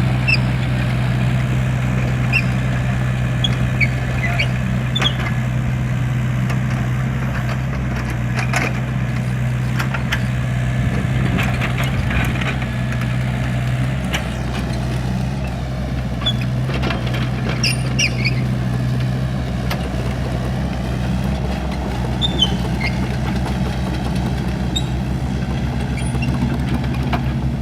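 A motor vehicle engine idling steadily, with a few short high chirps over it.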